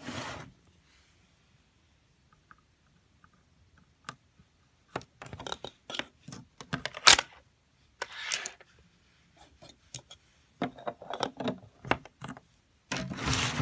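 Coins clinking and rattling against plastic LEGO parts as the takings are removed from a LEGO coin-operated vending machine. There is near silence at first, then a run of separate clinks and clatters starting about four seconds in, the loudest a little after seven seconds.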